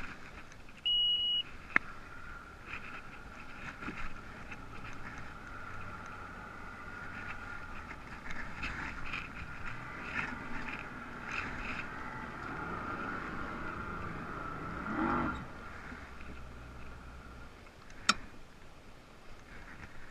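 Bass boat idling slowly at the helm: a single short beep about a second in, then the outboard running low and steady with a faint steady whine over it. A sharp click near the end.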